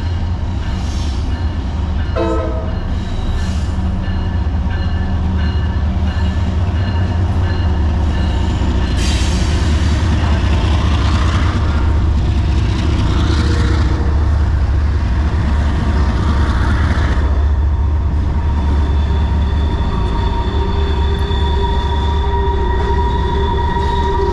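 CSX freight train passing close by: a heavy diesel locomotive rumble, then loaded-down steel wheels and cars rolling past. Near the end a steady high-pitched wheel squeal comes in over the rumble.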